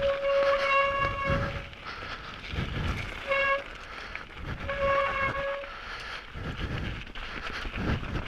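Heavy breathing puffing into a microphone set just in front of the mouth, after exertion. Over it, a steady tone at one unchanging pitch sounds three times: a long one of about two seconds, a short blip, then one of under a second.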